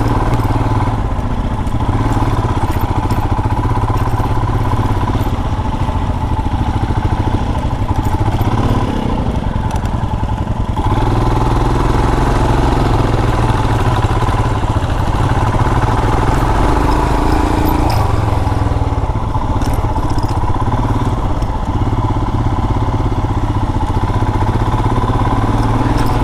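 Royal Enfield Himalayan's single-cylinder engine running as the motorcycle is ridden along an off-road dirt trail, getting a little louder about eleven seconds in.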